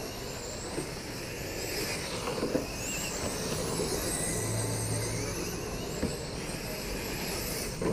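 Radio-controlled race cars' motors whining at a high pitch that rises and falls as the cars lap a dirt oval.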